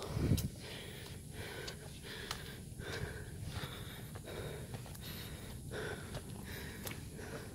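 A hiker breathing hard, in and out in noisy puffs roughly once a second, with a low thump just at the start.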